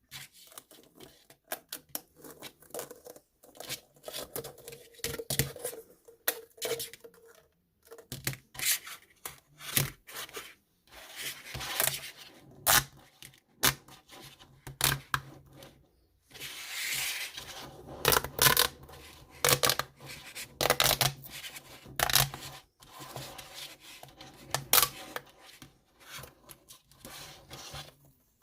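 Irregular crackling and clicking of plastic being handled, with a longer rustling stretch about 17 seconds in: pop tube fidget toys and their plastic packaging being pulled and worked by hand.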